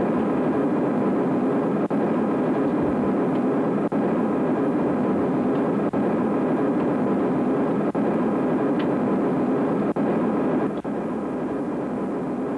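Steady jet airliner cabin noise, dipping briefly about every two seconds, and a little quieter near the end.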